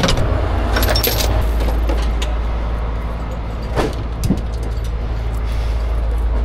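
A heavy truck's diesel engine idles steadily with a low rumble. Steel rigging chains clink as they are handled in the first second or so, and two metallic knocks follow about four seconds in.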